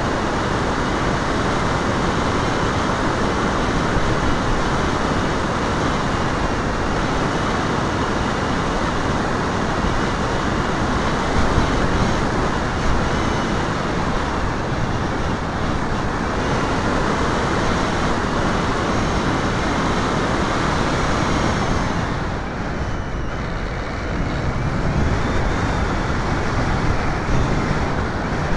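Steady rushing wind noise on the microphone of a camera carried in flight, dipping briefly about 22 seconds in.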